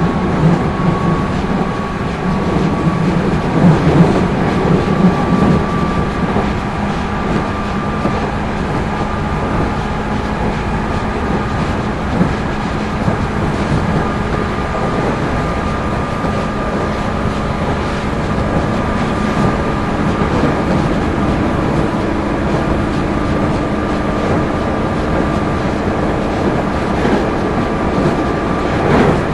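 Running sound heard inside a JR 213 series electric multiple unit, motor car KuMoHa 213-3: a steady rumble of wheels on rail with a faint high whine running through it.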